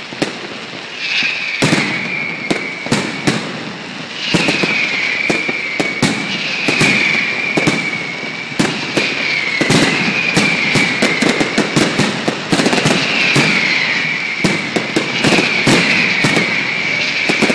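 Fireworks display: a rapid string of bangs and crackling shell bursts, with a high whistle that dips slightly in pitch sounding again about every two seconds. The bangs come thickest near the end.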